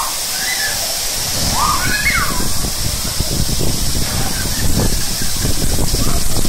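Water rushing and sloshing through an enclosed fibreglass water-slide tube as inflatable rings slide down it, with a rough, rumbling hiss. A few short, high squeals come in the first two seconds.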